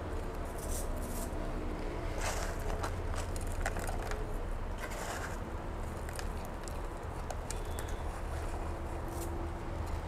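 Scissors cutting Velcro strips, with scattered small clicks and rustles of handling, over a steady low background hum.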